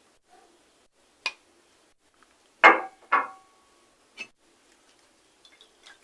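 Kitchen utensils and containers knocking and clinking while a blended mixture is strained: four separate sharp knocks, the loudest two close together about halfway through, the second leaving a brief ring.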